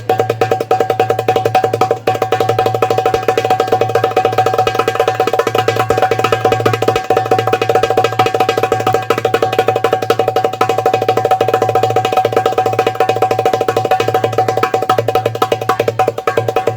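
Darbuka played in a fast, continuous triple roll, the strokes running together into an unbroken stream with the drum's ring sustained under them.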